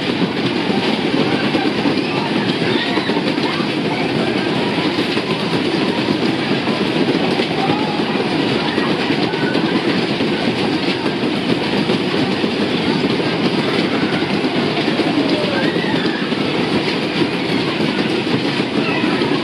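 Hayes Fabrications Skid fairground ride running at speed: its cars' wheels give a steady, continuous rumbling rattle over the ride floor, with faint voices over it.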